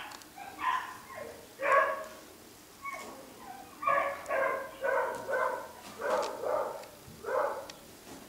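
Beagle puppy yapping at play: a run of about a dozen short, high-pitched yaps, several coming in quick pairs.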